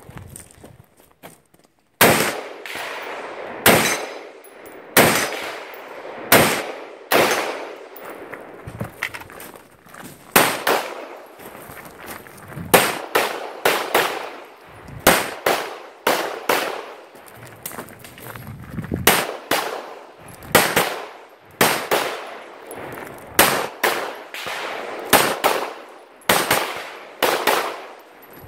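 Gunshots from a competitor firing a rifle and a pistol at a practical-shooting stage. Single shots start about two seconds in and come irregularly, half a second to two seconds apart, each with a short echo.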